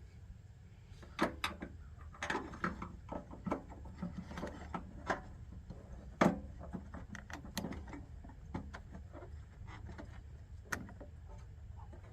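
Irregular clicks and knocks of small parts and tools being handled while a heater's fuel-filter assembly is serviced, the loudest knock about six seconds in.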